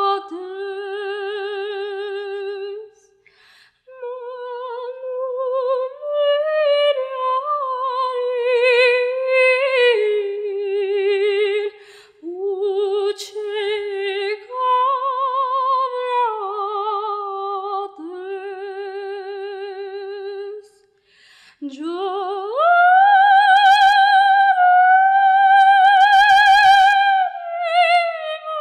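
A girl singing solo and unaccompanied, with a strong vibrato, in phrases separated by short breaths. Near the end she slides up into a long, loud, held high note.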